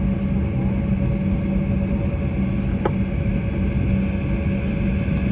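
Steady airliner cabin drone inside an Embraer E190 on the ground, a constant low hum with a fainter steady higher tone, and one short click about three seconds in.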